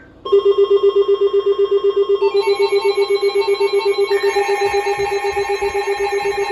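Loud electronic alert tone that starts suddenly and pulses rapidly, with higher tones joining in about two and about four seconds in.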